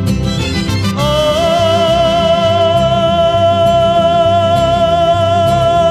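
Ranchera song with band backing: a long held note with slight vibrato from about a second in, over a steady bass pulse.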